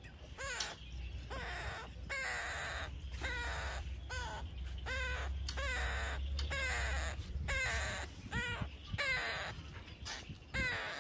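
An animal calling over and over, a little more than once a second, each short call bending up and down in pitch.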